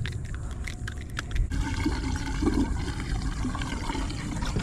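Water splashing and trickling in a boat's bait well.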